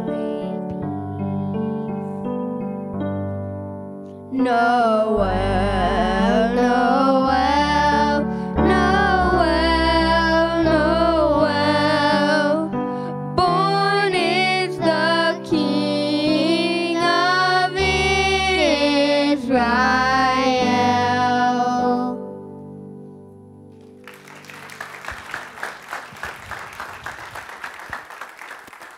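A song: a voice singing over piano accompaniment, which fades out about 22 seconds in. Applause follows near the end.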